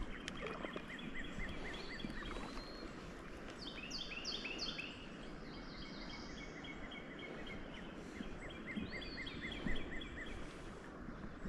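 Songbirds singing: a quick run of short chirps, about five a second, heard twice, and a few sharp falling whistles in the middle, over a steady outdoor background hiss.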